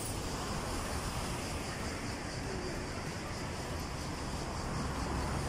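Steady outdoor background noise: a low rumble with a faint high hiss above it, no distinct events.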